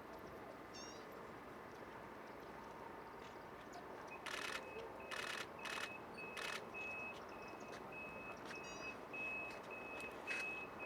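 A high electronic beep, like a vehicle's reversing alarm, starts about four seconds in and repeats steadily about twice a second. A few short hissing noises come just after it starts, and quick falling chirps come twice.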